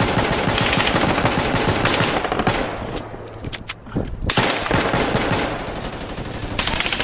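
Heavy automatic gunfire in long rapid bursts, thinning to separate shots a few seconds in and then picking up again.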